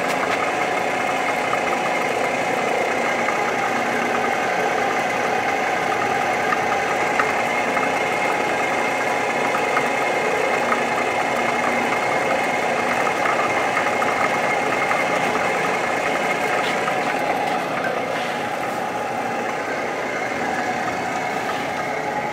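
Tree CNC milling machine running with a steady mechanical hum and whine, easing off slightly in the last few seconds.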